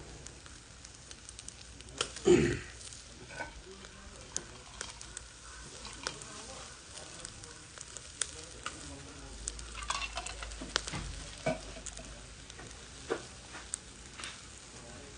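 Chicken wings sizzling over glowing charcoal in a shichirin grill, with scattered sharp crackles and pops throughout. A single louder knock comes about two seconds in.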